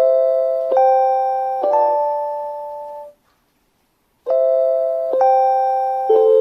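JR Hokkaido station guidance chime for blind passengers: an electronic melody of bell-like notes struck about a second apart, each ringing and fading. Partway through, a pause of about a second falls before the melody starts again.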